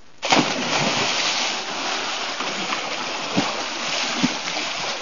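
People jumping into the sea together with a big splash about a third of a second in, followed by continuous splashing and churning water as they thrash about, with a couple of sharper slaps near the end.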